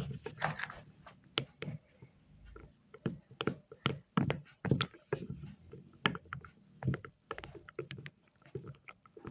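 Wet chalk being crushed and crumbled by hand close to the microphone: an uneven run of soft crunches, clicks and taps, several a second.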